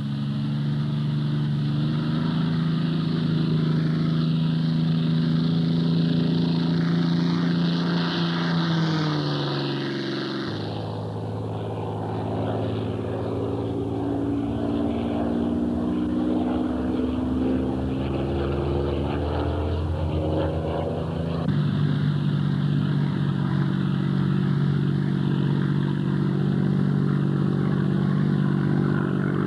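Spitfire's V12 piston engine running in flight with a steady, deep drone. The note dips just before ten seconds in, then the sound switches abruptly to a slowly rising engine note, and switches back to the steady drone about twenty-one seconds in.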